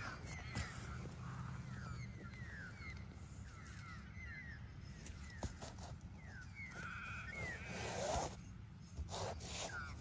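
Small birds chirping over and over with short falling calls, above a steady low rumble, with a few soft clicks and a louder brief noise about three quarters of the way through.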